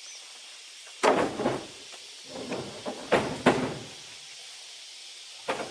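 A series of sudden knocks and thumps: a loud one about a second in, then a cluster of several more, the loudest two a little past three seconds.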